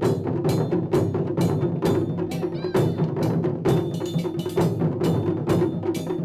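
Wadaiko ensemble drumming: large barrel-shaped nagado-daiko and small tight shime-daiko struck with bachi sticks. Sharp strokes fall about twice a second in a steady rhythm over a continuous drum rumble.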